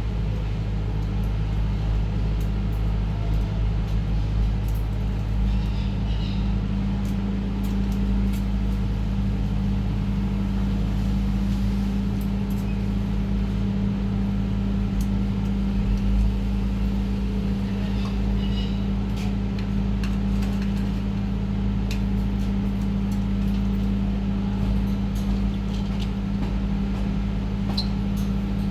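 Steady low mechanical hum from a running motor, with a few faint high chirps now and then.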